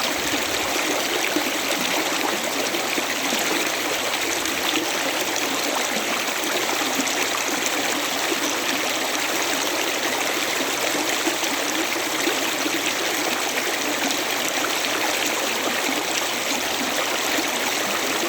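A river running, its water rushing and babbling steadily.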